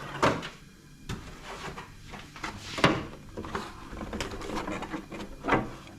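Handling noise from a plastic RC car being turned over and moved about on a surface: rustling and clicks, with three sharp knocks, one just after the start, one in the middle and one near the end.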